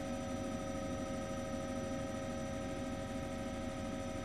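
Helicopter drone, steady and unchanging, with a whine of several steady pitches over a low rumble.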